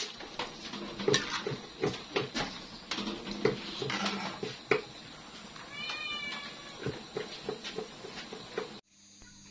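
A metal ladle knocking and scraping against a wok while bamboo shoots in broth are stirred, with a cat meowing once about six seconds in. The sound cuts off abruptly near the end.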